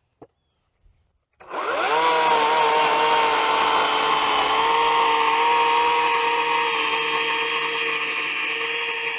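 Atlas 80V electric chainsaw spinning up about a second and a half in and running steadily as it cuts into a log, then stopping right at the end. The battery is nearly flat, and the cut stalls about halfway through the log.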